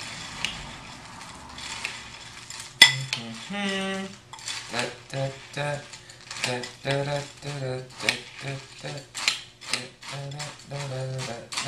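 Spoon scraping and clinking in a bowl of cereal and milk, with a sharp clink about three seconds in. Then a man hums a made-up tune in short, separate notes.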